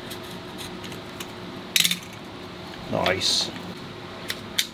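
Small clicks and clacks of a DeWalt cordless grinder being taken apart by hand: the plastic housing and screws handled on a workbench, with one sharper clatter about two seconds in.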